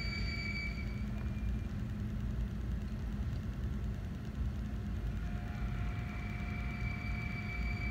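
Steady low mechanical rumble of running machinery with a faint high-pitched whine; a thin steady mid tone joins about five seconds in.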